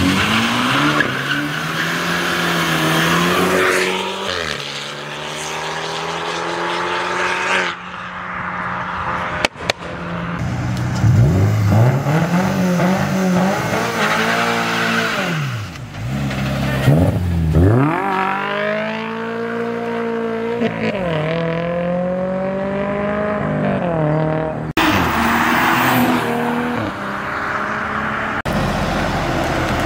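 Cars accelerating hard past one after another, engines revving up with climbing pitch and dropping back at gear changes.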